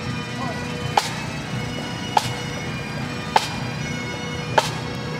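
Highland bagpipes holding a steady drone, with a single drum stroke about every second and a quarter, four in all.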